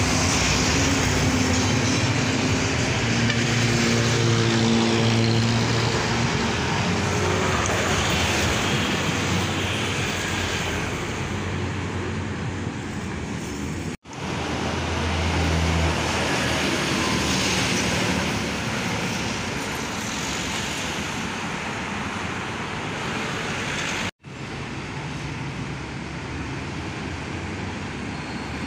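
City road traffic with buses and heavy trucks driving past, their engines and tyres running steadily. A bus engine passing close is loudest in the first few seconds. The sound cuts out abruptly twice, about halfway through and again a few seconds before the end.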